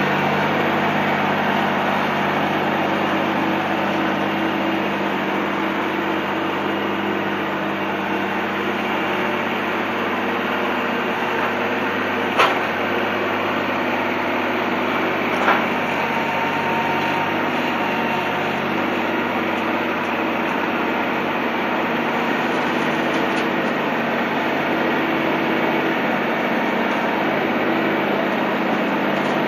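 An engine running steadily at a constant speed, with two sharp knocks about twelve seconds in and three seconds later.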